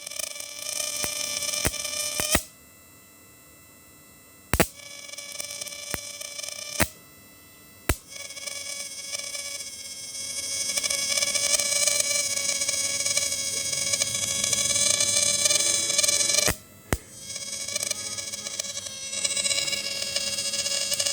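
Electric fishing machine's 12 V to high-voltage inverter running with a steady buzzing whine, switched on and off several times with a sharp click each time; the longest run lasts about eight seconds.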